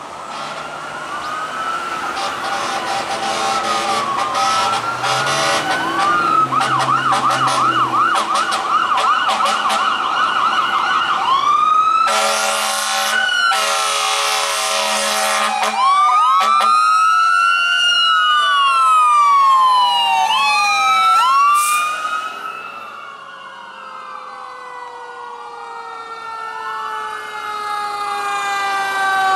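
Fire rescue vehicles passing in convoy with electronic sirens wailing and briefly yelping. About halfway through there are several seconds of loud horn blasts. Near the end a fire truck's Federal Q mechanical siren winds down with a long, slowly falling tone.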